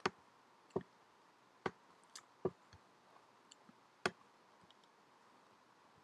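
Faint computer mouse-button clicks, about half a dozen short sharp clicks at irregular intervals, most of them in the first four seconds.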